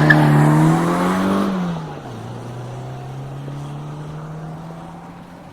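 Rally car engine accelerating hard away from a standing start, its note climbing and then dropping sharply about two seconds in, after which it runs on more steadily and fades as the car drives off.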